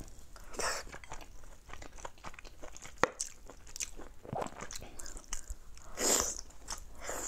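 Close-up eating sounds of a person chewing braised pork with preserved mustard greens: wet chewing with many sharp mouth clicks and smacks, and two louder hissing slurps as strands of food are sucked in, one near the start and one near the end.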